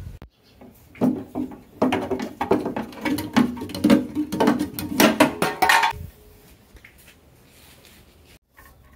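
Rusted sheet-steel body panels from a 1980 Vespa PX150 clanking and rattling against one another as they are handled: a quick run of ringing metallic knocks that starts about a second in and stops about six seconds in.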